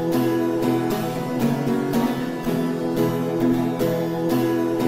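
Instrumental background music: guitar chords with a steady beat.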